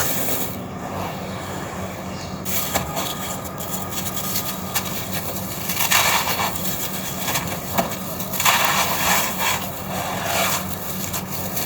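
Red sand-cement chunks being crushed and crumbled, a gritty crunching and rubbing in irregular bursts, with louder crunches about six and nine seconds in.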